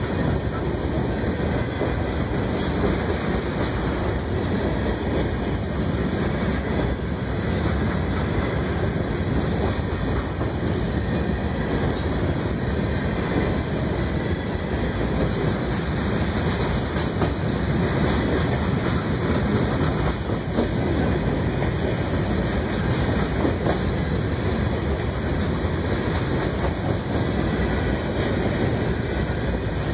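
Covered hopper cars of a freight grain train rolling past: a steady rumble of steel wheels on rail, with clickety-clack as the wheels pass over rail joints.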